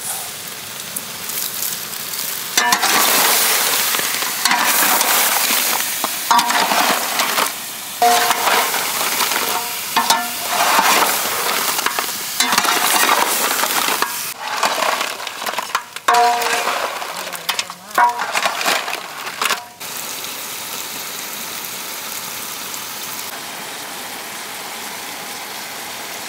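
Large pot of cracked mud crabs frying in thick masala, stirred in loud, irregular strokes from a few seconds in until about two-thirds of the way through. After that it settles into a steady, quieter sizzle.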